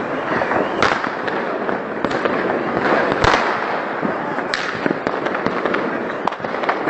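Many fireworks and firecrackers going off at once: a continuous dense crackle and popping, with sharper bangs standing out about a second in and again past three seconds.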